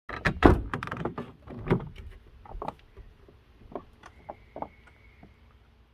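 Van door being opened: a quick series of latch clunks and knocks, loudest about half a second in, then fainter scattered clicks.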